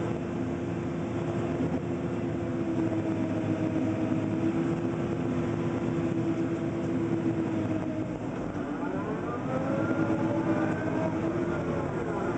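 Komatsu PC300 excavator's diesel engine and hydraulics running under load, heard from inside the cab, with a steady drone. From about eight seconds in, several whining tones rise and fall together as the machine swings away from the truck.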